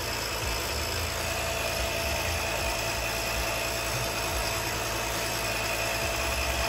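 A motor running steadily with a constant hum and a fluttering low rumble: the air supply of a homemade smoke machine pushing smoke into the engine during a vacuum-leak smoke test.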